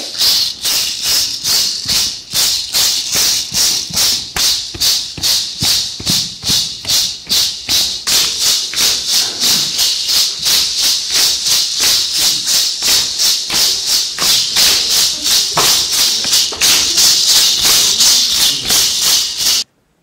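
Rattles shaken in a steady dance rhythm, about three sharp strokes a second. The rhythm cuts off suddenly near the end.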